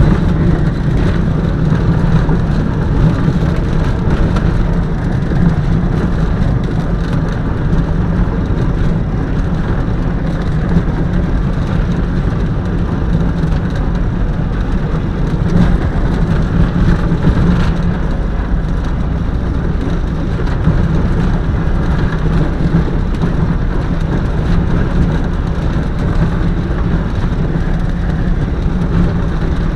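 Van's RV-4's piston engine and propeller running at low power while the plane taxis on grass, heard from inside the cockpit: a steady low drone with a hissing, rumbling noise over it.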